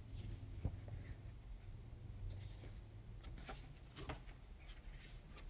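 Faint rustling and a few soft taps as the pages of a picture book are handled and turned, over a low room hum.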